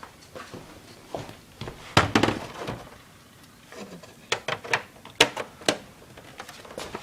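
A series of knocks and sharp clicks from the Xbox 360 console being handled and its cables plugged in, with a heavier knock about two seconds in and several crisp clicks a little later.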